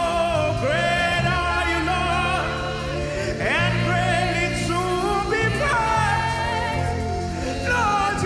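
Live gospel worship music: a singer holding long notes that scoop up into each pitch, over keyboard accompaniment with low sustained notes.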